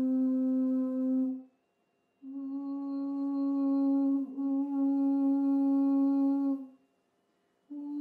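Steady pure-sounding tones from a signal generator and loudspeaker vibrating a sand-covered Chladni plate, stepping up a chromatic scale. The first note cuts off about a second and a half in. After a short silence a slightly higher note holds for about four seconds and stops, and a third, higher note starts near the end.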